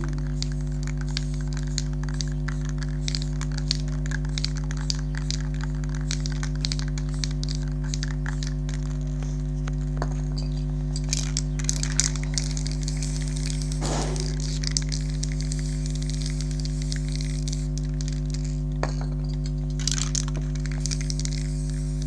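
A steady low hum throughout, with aerosol spray-paint cans hissing in short bursts over it, most clearly about halfway through and again near the end, along with many scattered sharp clicks and crackles.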